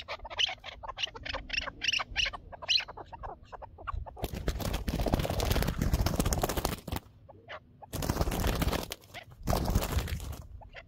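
Chukar partridge calling in a rapid series of short chuk notes for about three seconds. Then a partridge caught in a string snare beats its wings in three bouts of loud flapping.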